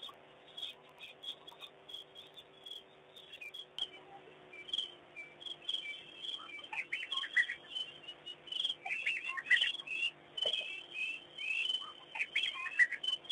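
Many birds chirping and calling at dusk: a chorus of short chirps and trills, sparse at first and growing busier from about six seconds in.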